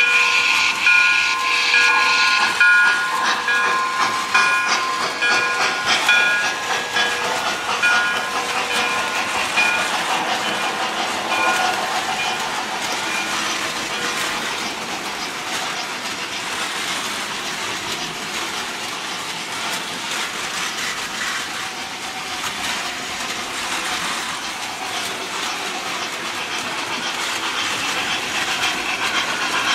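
Model steam locomotive's electronic sound system sounding its whistle in repeated short blasts for about the first ten seconds, then a steady hiss and rumble of the toy train running on the track.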